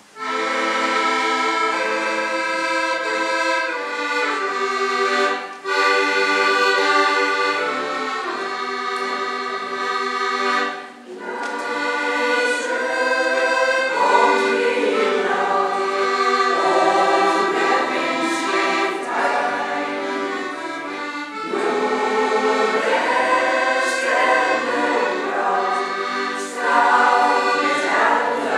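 Accordion playing a slow introduction of sustained chords, breaking off briefly twice; about twelve seconds in, a women's choir comes in singing, with the accordion accompanying.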